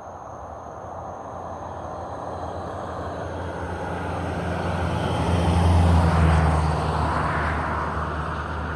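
A motor vehicle passing by: a low engine hum that grows steadily louder to a peak about six seconds in, then fades.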